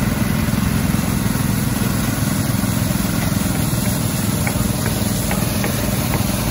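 Several small engine-driven water pumps running steadily together, with water gushing from their discharge outlets as they pump a jumbo-bag cofferdam dry.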